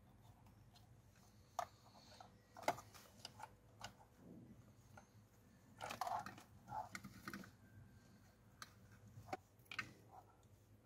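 Plastic wiring-harness connectors and cables clicking and rustling as they are handled and plugged in: faint, irregular clicks, the sharpest a little under three seconds in, with a busier flurry around six to seven seconds.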